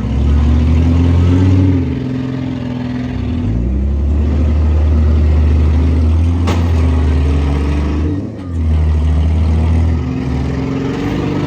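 Demolition derby car engines revving hard, their pitch rising and falling as the cars drive and reverse. There is one sharp bang a little past the middle, typical of one car ramming another.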